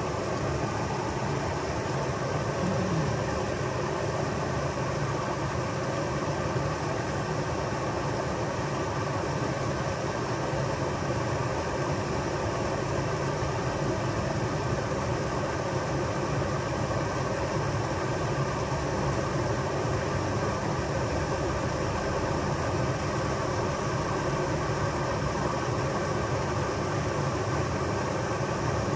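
Steady rush of creek water pouring over a small waterfall, an even, unchanging noise.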